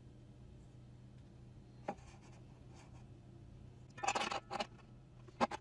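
Faint steady low hum with a single click, then a brief patch of scraping or rubbing handling noise and two sharp clicks near the end.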